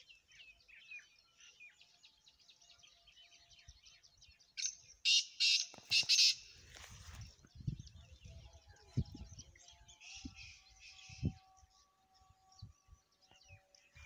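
Small birds chirping, then a loud, harsh call of four quick notes about five seconds in: the call of a black francolin. After it come scattered low thumps.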